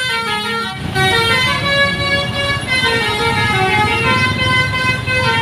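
A bus's 'basuri' telolet horn, a multi-tone musical air horn, playing a tune of stepped notes, each held about a third to half a second. A low engine-and-road rumble sits underneath.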